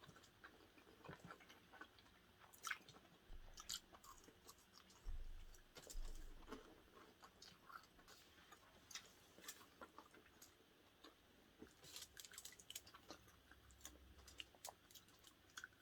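Soft chewing and eating sounds of people at a meal, with scattered faint clicks.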